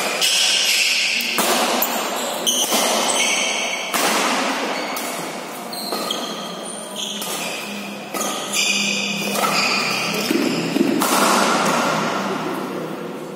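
Badminton doubles rally: rackets striking the shuttlecock in a string of sharp hits about a second apart, each echoing in the hall, with short high squeaks of shoes on the court between them.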